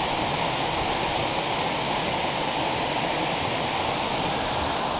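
Steady rush of water spilling from a mill pond dam and churning white over the boulders below it.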